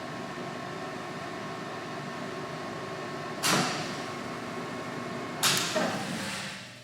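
Kingston HP5000 heavy-duty lathe running with a steady hum, broken by two loud sudden noises about 3.5 and 5.5 seconds in, with the sound dying down near the end.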